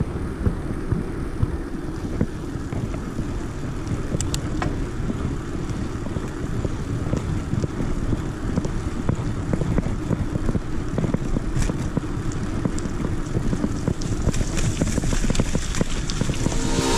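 Wind buffeting a handlebar-mounted camera's microphone over the rumble of bicycle tyres rolling downhill on pavement, with occasional sharp clicks and knocks from the bike going over bumps.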